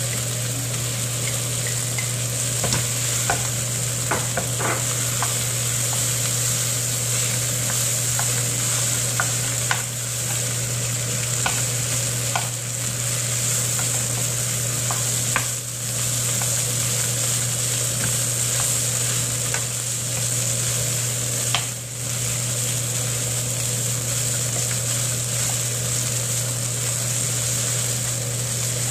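Kimchi and rice sizzling in a nonstick frying pan while a wooden spatula stirs and scrapes through it, with scattered light clicks of the spatula on the pan. A steady low hum runs underneath.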